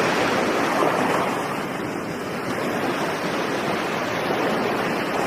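Steady rushing of ocean surf, an even wash of noise without breaks or beats.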